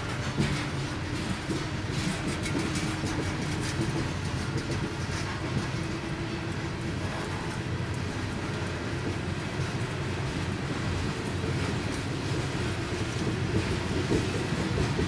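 Coal hopper cars of a freight train rolling past: a steady rumble of steel wheels on rail, with clicking as the wheels cross rail joints.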